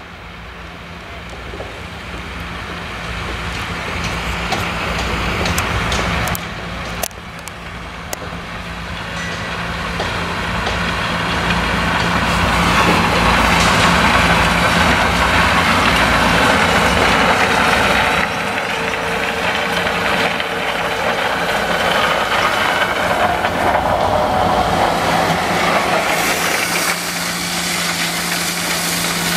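John Deere tractor's diesel engine running as the tractor works across harvested maize stubble, a steady low engine hum that grows louder over the first half as the tractor comes close, then holds.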